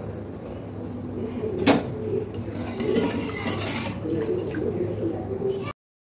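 A single sharp metal clink, a ladle striking the stainless steel cooking pot, about a second and a half in, with a few fainter clinks, over a steady low kitchen hum. The sound cuts off abruptly near the end.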